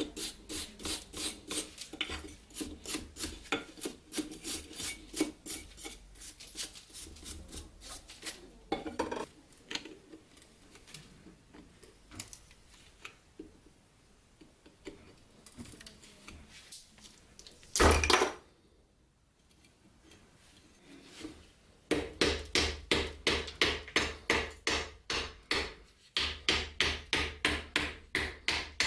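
Rhythmic hand strokes scraping rust off a steel dagger blade, about three strokes a second. The strokes fade in the middle, broken by one brief loud knock, then start again strongly.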